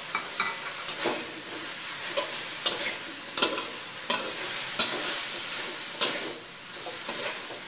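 Metal spatula scraping and knocking against a wok as Chinese kale and minced pork are stir-fried, a stroke every half second to second, over a steady sizzle of frying.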